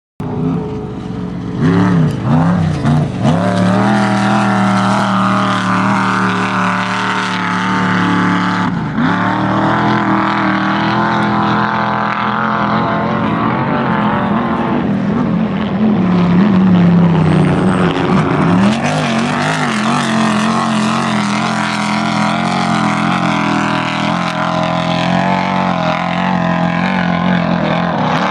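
Off-road desert race vehicles' engines running hard at high revs as they pass, the pitch falling and climbing again several times with throttle and gear changes.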